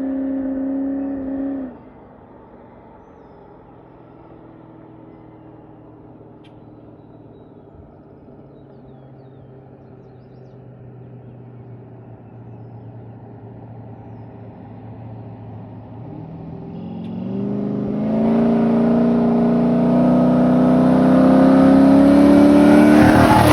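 Cammed 6.0 L V8 of a Chevrolet C10 pickup, running through an X-pipe and Magnaflow muffler. It is held at raised revs, drops back to a quieter idle about two seconds in, then builds into a long, loud rev with rising pitch from about sixteen seconds and falls off sharply right at the end. The engine has a misfire.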